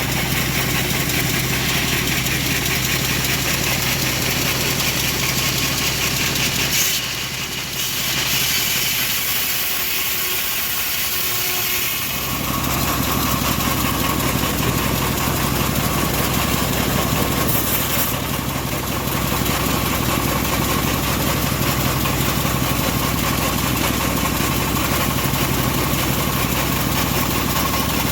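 Engine of a homemade bandsaw sawmill running steadily while sawing a teak log. Its low note drops away for a few seconds about seven seconds in, then comes back.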